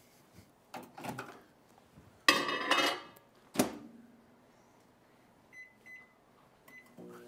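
Kitchen clatter of dishes and a pan, a sharp knock like a door shut, then three short keypad beeps and a microwave oven starting up with a steady hum.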